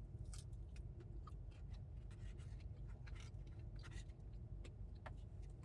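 Faint, scattered rustling and light clicks, like fried food and its paper or foam container being handled, over a low steady rumble.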